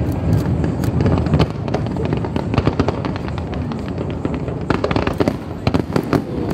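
A fireworks display: a near-continuous barrage of overlapping bangs and crackles from bursting shells, with a cluster of louder reports about five seconds in.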